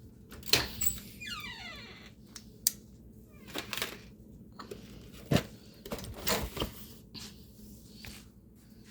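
Handling of food containers and lids: scattered clicks and knocks, with a squeak falling in pitch about a second and a half in.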